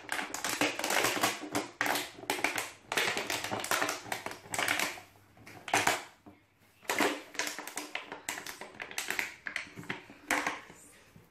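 Golden retriever puppy chewing an empty plastic water bottle: the thin plastic crackles and crinkles in quick irregular bursts, with a couple of short pauses.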